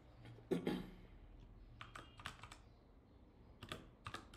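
Computer keyboard typing: a few scattered keystrokes as a name is typed into a form field, with a louder knock about half a second in and a quicker run of keys near the end.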